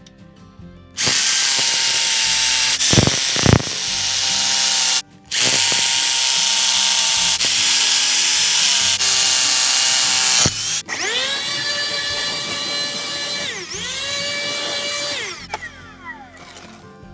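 Electric power tool running hard into wood, loud and rough for several seconds with a brief stop. Then a high motor whine that dips in pitch once under load and winds down near the end.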